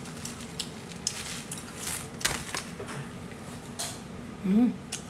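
A person chewing a mouthful of spicy seafood close to the microphone: a string of wet mouth clicks and smacks, with a short hummed "mm" about four and a half seconds in.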